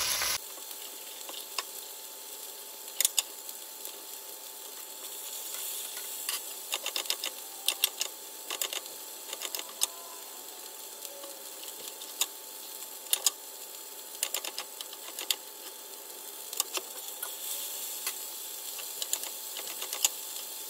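Knife tapping on a cutting board while a pepper is cut up, in short irregular runs of sharp clicks, over the steady faint sizzle of cubed steak browning in oil in a pan.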